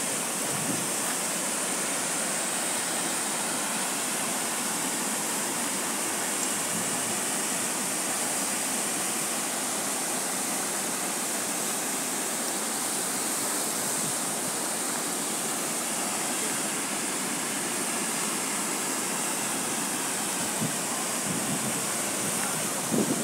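Water rushing steadily down the curved concrete chutes of a river weir: an even, unbroken hiss of falling water.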